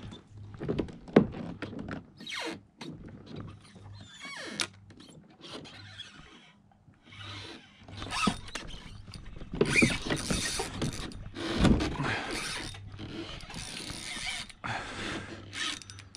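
Spinning reel being handled and cranked: irregular mechanical clicking and rattling with handling knocks, loudest about ten to twelve seconds in.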